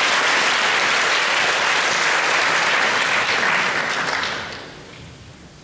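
Concert audience applauding, dying away about four and a half seconds in.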